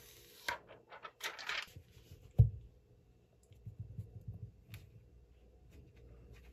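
Handling of a plastic screen protector on an iPad. There are short crinkly peeling noises about half a second and a second and a half in, and a single dull thump on the table a little later, the loudest sound. Then comes soft rubbing as fingertips press along the screen's edge to push out a small bubble.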